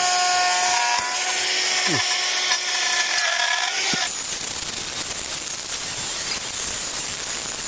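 Power tool running as it cuts timber, a continuous machining noise with a steady whine. About four seconds in the sound changes to a denser, more even rasp.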